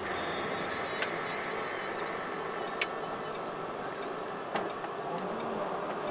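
Steady engine and road noise heard from inside a moving vehicle, with a few short sharp clicks.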